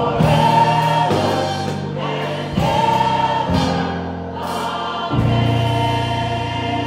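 Mixed gospel choir of women and men singing held chords into microphones, the chord changing about a second, two and a half seconds and five seconds in.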